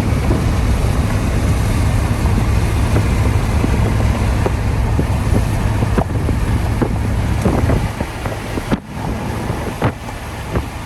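Wind buffeting the microphone: a steady, heavy rumble that eases off near the end, with a few short chirps in the second half.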